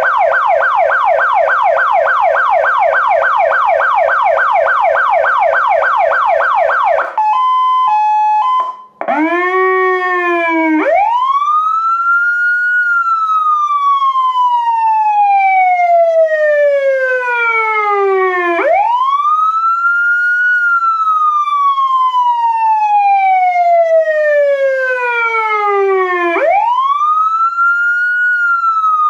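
Elfir Zura PS100r electronic police siren switching through its tones: a fast warble repeating several times a second, then about seven seconds in a brief two-note hi-lo, then a slow wail that rises quickly and falls slowly, three cycles about eight seconds apart.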